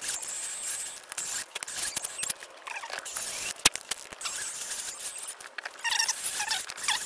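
Thread-repair tooling turned by hand in a stripped bolt hole in a DLE 20's aluminium cylinder head, for a PermaCoil insert: grinding metal-on-metal scraping with short squeaks and scattered sharp clicks, one louder click about halfway through.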